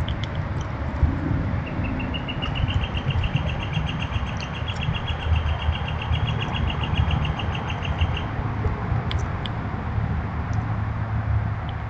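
A small songbird sings one long trill of rapid, evenly spaced notes at a steady high pitch, lasting about six seconds from about two seconds in, followed by a few short high chirps. Under it runs a steady low rumble.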